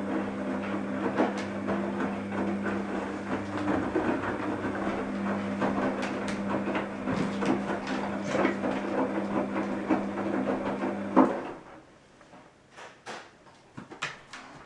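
Washing machine running with a steady motor hum and a rattle of clicks and knocks from the turning drum, cutting off abruptly with a loud click about eleven seconds in. A few faint clicks follow.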